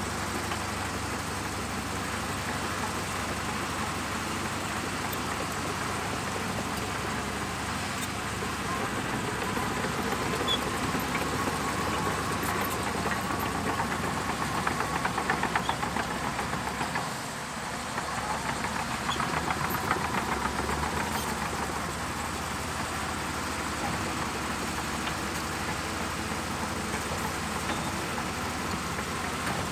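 Bulldozer's diesel engine running continuously. It grows louder with a rapid, even pulsing under load for several seconds around the middle, dips briefly, pulses again, then settles back to a steady run.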